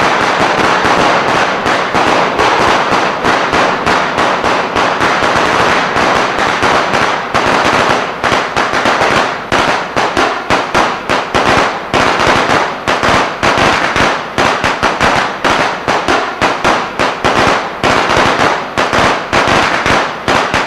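Eco-friendly firecracker machine sounding a string of firecrackers: rapid, loud crackling bangs, packed together at first and then spacing out into separate pops, several a second, over the second half.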